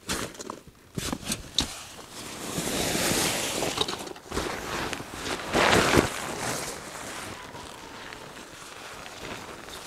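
Fabric rustling and swishing as gear, likely the tarp, is pulled out of a roll-top backpack. A few sharp clicks come in the first couple of seconds, and the loudest swish is about six seconds in.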